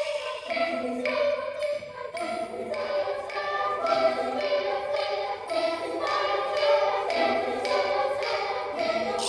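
Children's choir singing a choral piece, with the notes moving on every half second or so.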